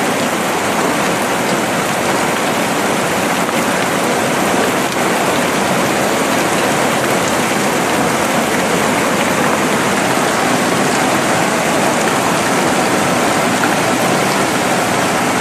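Heavy hail falling steadily: a dense, unbroken noise of hailstones striking the ground.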